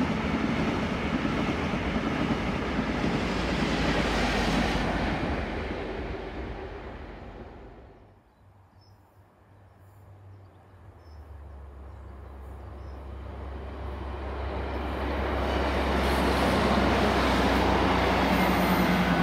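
A High Speed Train (InterCity 125, power cars 43045 and 43048) passes and its sound fades away over the first eight seconds. After a short lull, a Class 156 and Class 158 diesel multiple unit approaches. Its steady low engine drone and running noise swell from about eleven seconds in and are loud as it passes near the end.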